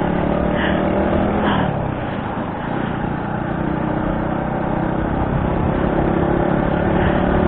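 Motor scooter's engine running under way, mixed with wind and road noise. The engine note eases off about two seconds in, then slowly builds again.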